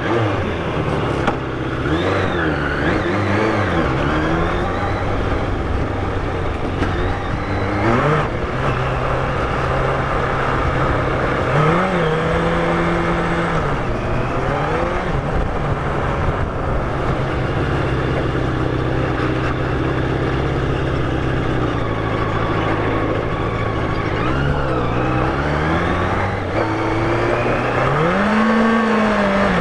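Yamaha FZR1000's inline-four engine running under way at low speed, revs rising and falling again and again as the throttle is opened and eased, with a steadier stretch midway.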